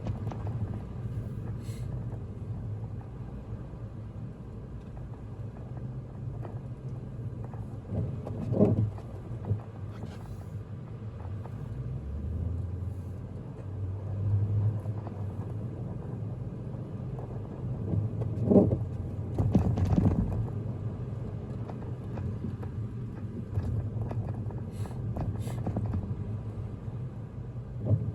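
Car driving, heard from inside the cabin: a steady low engine and road rumble, with a few short thumps along the way.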